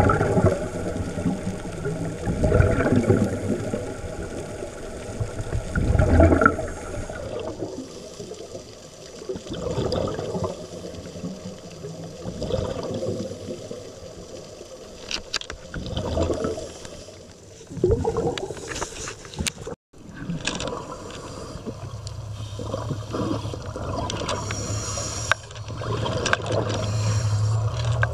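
Scuba divers' regulator breathing heard underwater: exhaled bubbles gurgle up in a surge every few seconds. After a break about two-thirds of the way in, a steady low hum sits under the bubbling.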